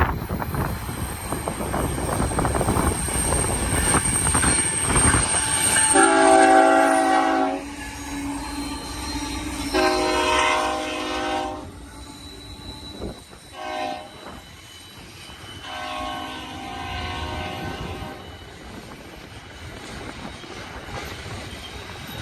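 BNSF ballast train rumbling past while its locomotive's multi-chime air horn sounds two long blasts, a short one and a final long one, each a chord of several tones.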